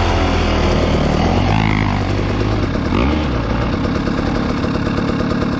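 Dirt bike engine running at low revs, its pitch shifting slightly with the throttle.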